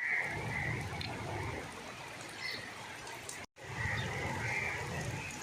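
Steady rain falling, with birds calling several times over it and a low wind rumble on the microphone. The sound cuts out for an instant about three and a half seconds in.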